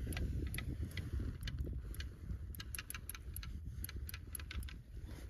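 Fishing line being hauled by hand up through a hole in the ice, giving scattered sharp ticks and clicks, several a second in places, over a low steady rumble of wind on the microphone.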